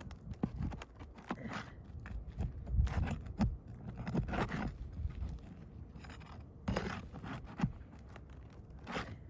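Hand tool scraping and prying under asphalt roof shingles to work roofing nails loose, with irregular scrapes and a few sharp knocks.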